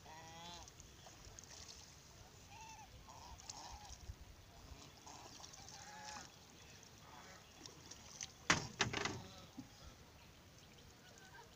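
White domestic ducks on a pond calling now and then, short faint calls spaced a few seconds apart. About eight and a half seconds in comes a brief loud flurry of noise.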